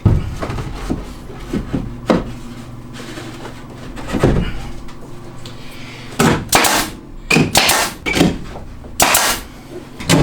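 A series of sharp knocks from carpentry on wooden framing, spaced out at first and coming more often in the second half.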